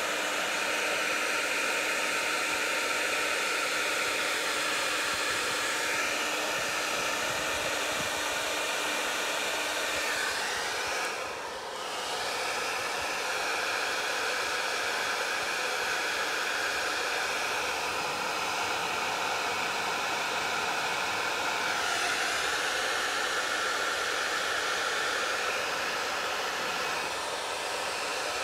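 Heavy-duty hair dryer running, a steady rush of air, with a brief dip in loudness about eleven seconds in.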